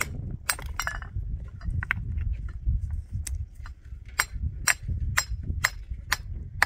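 Hammer blows on stone, as in stone dressing for a drystone wall: sharp ringing strikes, scattered at first, then a steady run of about two a second, over a low steady rumble.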